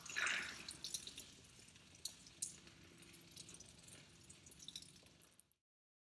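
Beer poured from a can, splashing onto a man's face and beard in the first half-second, then faint scattered drips. It cuts off suddenly near the end.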